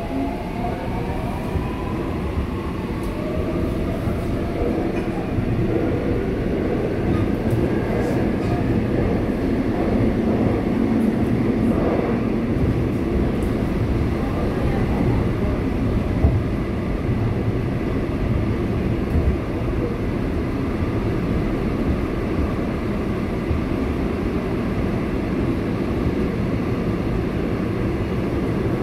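Seoul Subway Line 8 train running between stations. Whining tones rise in pitch over the first few seconds as it picks up speed, then a steady rumble of wheels on rail runs on.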